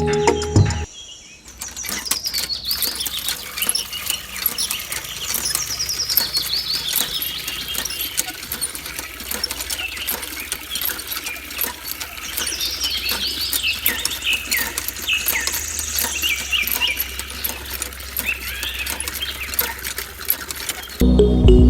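Small birds chirping busily in many short, quick calls, with scattered light clicks underneath.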